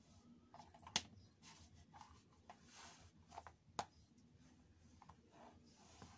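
Mostly quiet, with faint taps and clicks of plastic jelly flats and feet shifting on a wooden floor, and two sharper clicks, one about a second in and one just before four seconds.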